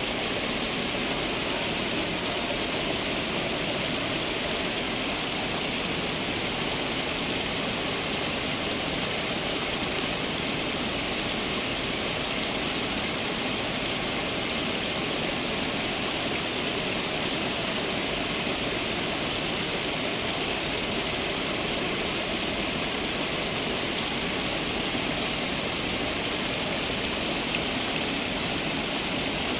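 Garden fountain water falling and splashing steadily.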